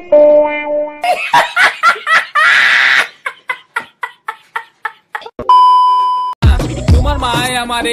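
The last notes of a chime-like jingle, then a woman laughing loudly in rapid repeated bursts for about four seconds, then a steady high TV test-card beep lasting about a second, followed by music with a heavy beat.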